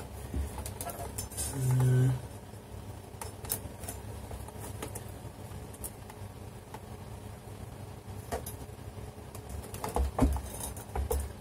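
Scattered light clicks and knocks from a point-of-sale touch screen unit's casing and stand as it is tilted and shifted by hand, busier near the end. A brief low hum of a voice comes about two seconds in.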